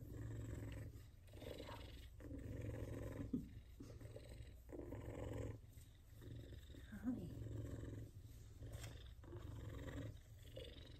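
F2 Savannah cat purring, the purr swelling and fading about once a second with each breath in and out.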